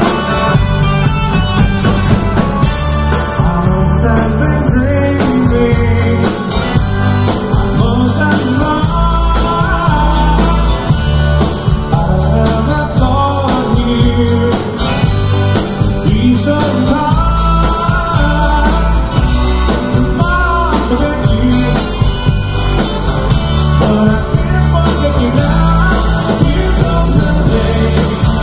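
A live band playing country-flavoured rock: drum kit, bass, and electric 12-string and acoustic guitars, with a man singing lead over it.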